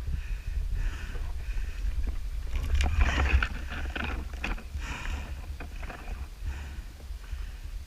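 Wind rumbling on the microphone, with a quick cluster of sharp clicks and snaps about three to four and a half seconds in.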